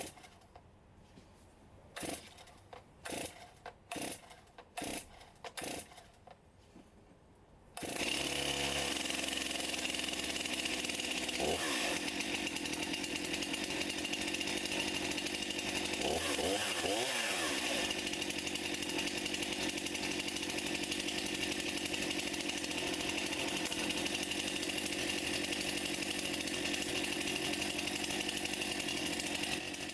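Brand-new Stihl MS261 C-M two-stroke chainsaw being started for the first time: a series of short pulls on the starter cord, then the engine catches about eight seconds in and runs steadily, with a couple of brief changes in engine speed.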